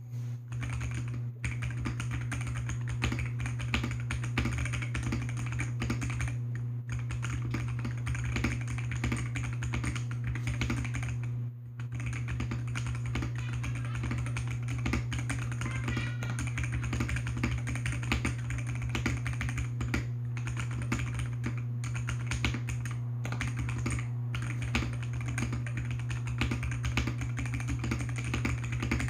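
Continuous fast typing on an AKKO PC75B Plus mechanical keyboard with lubed Akko Jelly White linear switches. The key presses come in quick, dense runs, broken by brief pauses about a second in, about seven seconds in and about halfway through. A steady low hum runs underneath.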